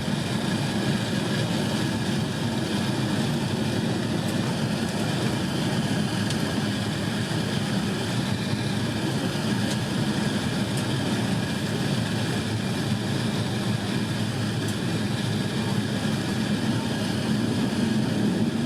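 Airbus A350-900 airliner in flight: steady, unchanging jet engine and airflow noise, deepest and strongest in the low range, with a few faint steady tones above it.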